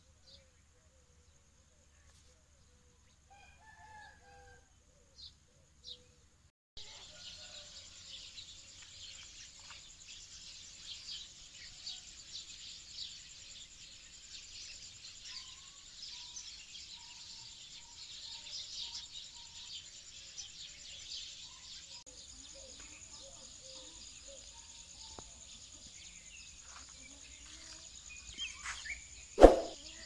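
A dense, high-pitched chirping chorus sets in about seven seconds in and runs on steadily, after a quieter start with a few faint chirps. Just before the end a chicken calls loudly.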